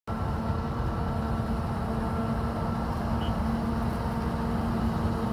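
JCB Fastrac 8330 tractor and forage harvester running steadily while harvesting maize: an even diesel rumble with a constant low hum.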